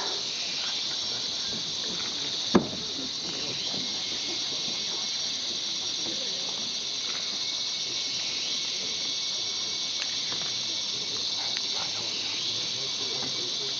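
Steady high-pitched drone of rainforest insects, even throughout. One sharp click comes about two and a half seconds in.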